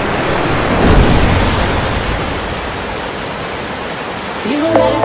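A steady rushing noise, even across high and low pitches, swelling about a second in and slowly fading; music comes in near the end.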